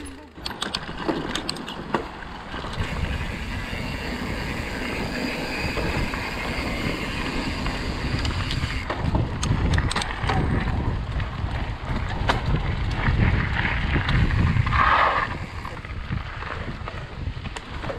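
Wind buffeting the microphone, a steady low rumble that swells and eases, with a few scattered clicks.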